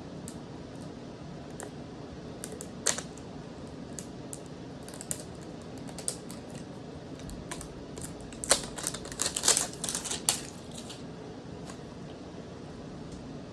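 Small clicks and taps of a Pokémon card mini tin and its packaging being handled and opened, scattered at first, then a denser run of louder crinkly clicks about eight to ten seconds in, over a steady background hiss.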